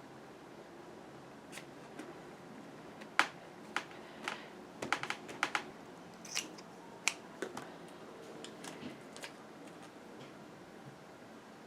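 Irregular sharp clicks and snips from hands working with paper-craft supplies at a desk, bunched mostly in the middle, over faint steady room noise.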